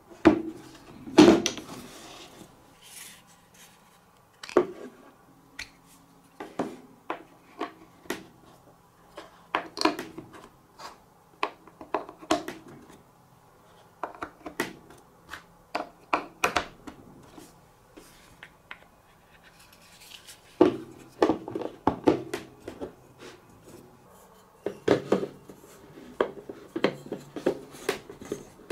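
Wooden and plastic marble-run pieces being handled and stacked during assembly: scattered clicks and knocks as blocks are pressed together and set down on a hard table, with a denser run of clacks in the last third.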